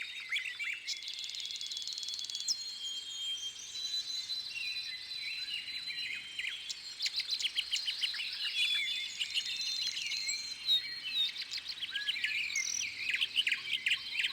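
Wild birds chirping and calling in a busy chorus of short high notes, thickest in the second half, over a faint steady high-pitched insect tone.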